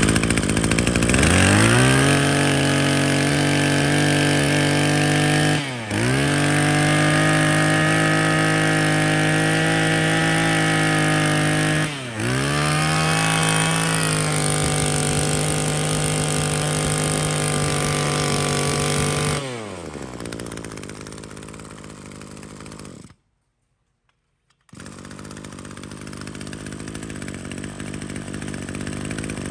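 Maruyama 26cc two-stroke brush cutter engine revved up to full throttle. Its pitch dips briefly twice as the throttle is let off and squeezed again. About twenty seconds in it drops back to a lower idle. After a short dead gap, a quieter steady running sound continues.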